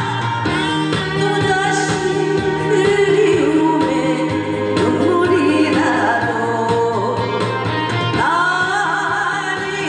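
A woman singing a Korean song into a microphone over instrumental accompaniment, her held notes wavering with vibrato.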